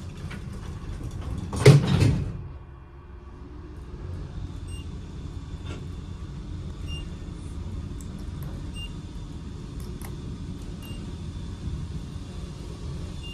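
Modernized elevator's doors sliding shut with a loud thud about two seconds in, then the car travelling with a steady low rumble and a faint high hum, with a few small ticks.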